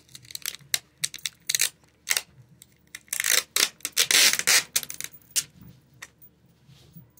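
Cardboard and tape being handled: a rapid series of scrapes and clicks, with two longer rasping bursts about three and four seconds in.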